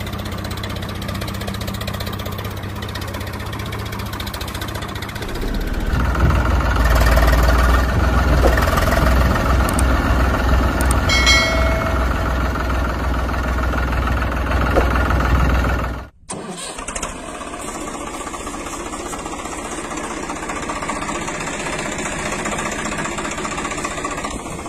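Tractor engine running steadily. About a third of the way in it grows louder with a deep rumble, and about two-thirds in it cuts off suddenly and gives way to a lighter, steady engine sound.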